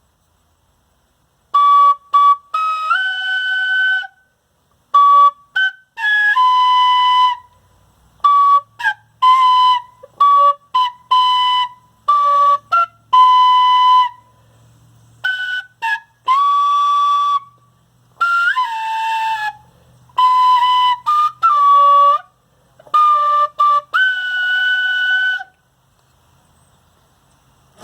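A slow tune of clear, held, whistle-like notes in short phrases, starting about a second and a half in and stopping a couple of seconds before the end.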